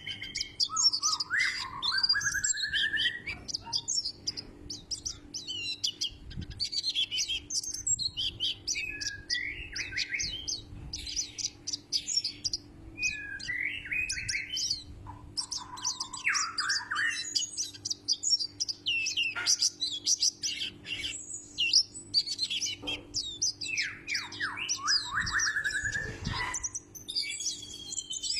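White-breasted white-eye (kacamata bird) singing: loud, fast, high twittering chirps and rapid trills, in phrases broken by short pauses.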